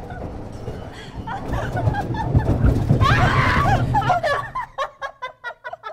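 Earthquake simulator shaking at seismic intensity 7, a deep rumble with voices crying out over it. The rumble dies away about four and a half seconds in, leaving quick bursts of laughter.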